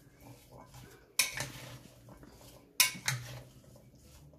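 A spoon stirring chickpeas and chopped fruit in a glass bowl: soft scraping of the mix, with sharp clinks of the spoon against the bowl, once about a second in and twice close together near three seconds.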